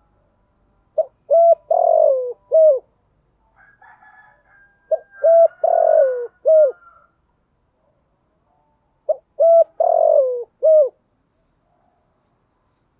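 Spotted dove cooing: three phrases about four seconds apart, each a few short notes around a longer middle note that falls in pitch.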